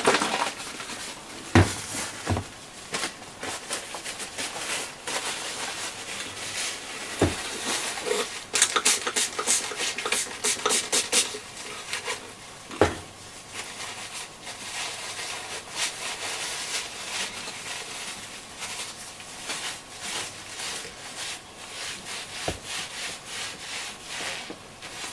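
Cloth rubbing dashboard cleaner over a transistor radio's case, with a quick run of wiping strokes about nine seconds in and a few light knocks.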